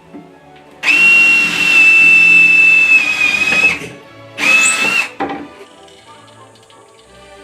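Power drill boring pilot holes into wood: one run of about three seconds with a steady high motor whine, then a shorter second run, over quiet background music.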